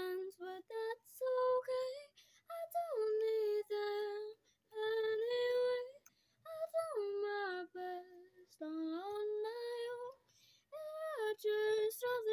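A young girl singing alone with no accompaniment, holding notes and sliding between pitches in short phrases with brief breaths between them.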